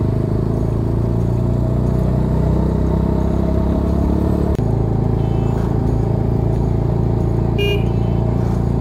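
Car engine and road noise heard from inside a moving car on a hill road: a steady low hum whose note changes abruptly after a brief dip about four and a half seconds in.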